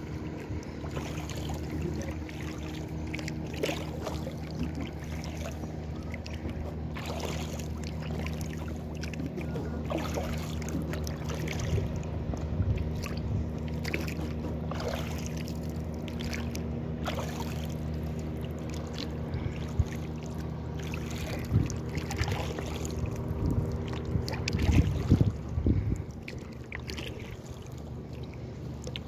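Water splashing and trickling around an inflatable kayak as it is paddled, with scattered small drips and splashes over a steady low hum, and a few louder bumps near the end.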